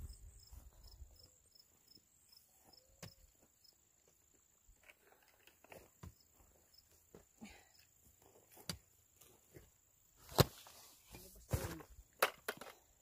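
Long-handled hoe chopping and scraping into loose, clumpy soil in scattered strokes, sparse at first and more frequent later, the loudest knock a little after ten seconds in. A steady high insect drone runs behind.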